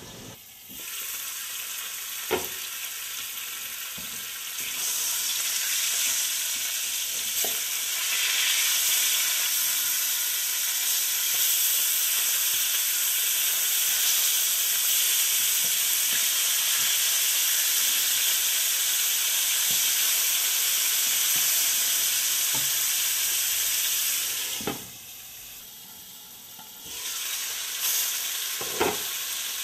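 Whole climbing perch frying in mustard oil in a pan: a steady sizzle that grows louder about five seconds in and dips briefly near the end. A few sharp knocks of a spatula against the pan.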